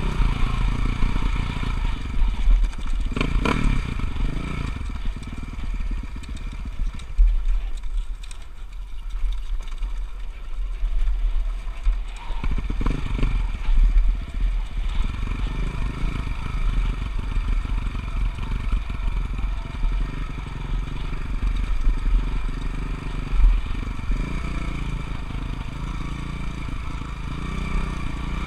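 Motocross bike engine running and revving up and down, easing off for a few seconds about a third of the way in before picking up again.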